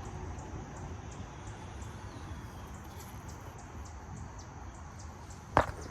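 Outdoor ambience: a steady low rumble with faint short high chirps repeating two or three times a second. One sharp, loud knock comes near the end.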